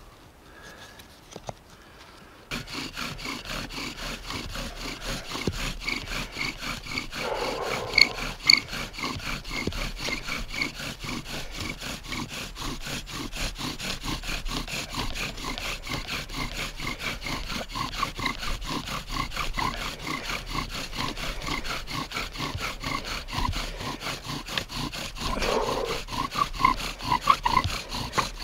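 Bow drill worked fast and hard: the wooden spindle grinds and squeaks in the wooden hearth board as the bow is sawn steadily back and forth, starting about two and a half seconds in. The friction is building hot wood dust toward a first ember.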